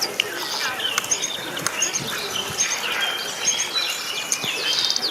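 Starling singing: a rapid, varied run of chirps, short whistles, pitch glides and clicks.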